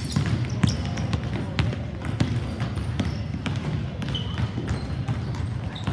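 Basketballs bouncing on a hardwood gym floor as players dribble: irregular sharp thuds that echo in the gym, over a steady low background din.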